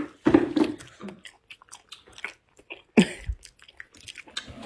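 Close, wet chewing and mouth clicks of someone eating a rice-stuffed chicken wing. A short murmur of voice comes in the first second, and a heavier knock about three seconds in.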